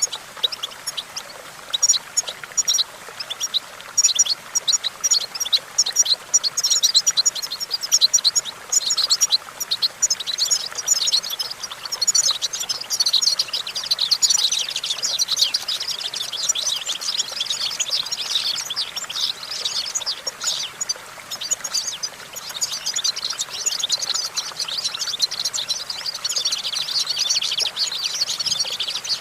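European goldfinch singing: a long, unbroken run of fast, high twittering and tinkling notes.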